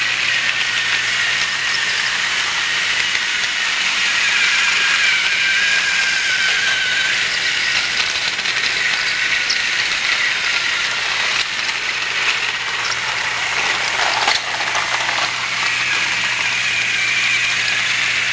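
Battery-operated TrackMaster Thomas toy engine running along plastic track: its small geared motor gives a steady high whine over a mechanical rattle. A single sharp knock comes about three-quarters of the way through.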